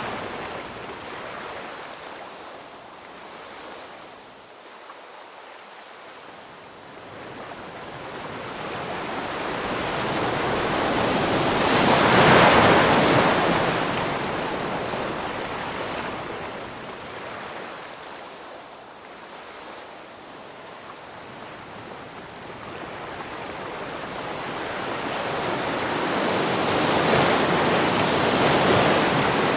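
Ocean waves rolling in on the shore: a steady rush of surf that swells and breaks about 12 seconds in and again near the end, ebbing quieter between.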